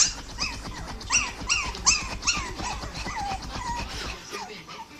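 A dog whining in a run of short, high-pitched cries, each rising and falling in pitch, about two or three a second, dying away about four seconds in.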